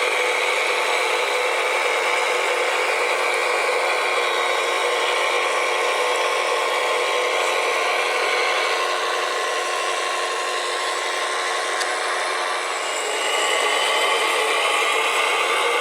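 Small electric motors and gearboxes of radio-controlled model machines whining steadily. The whine eases off a little partway through, then picks up again with a rising pitch near the end.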